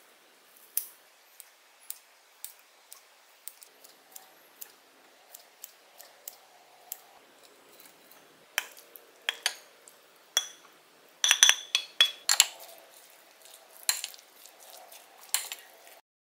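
Kitchen scissors snipping through soft seafood patties, a steady run of crisp snips about two a second. Then clinks and clatter as corn and cabbage are tipped from a metal pot into a ceramic bowl, loudest a little past the middle, followed by a wooden spoon stirring the batter.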